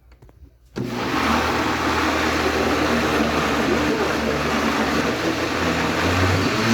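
Countertop blender switched on about a second in and running steadily at speed, blending diced carrots with water.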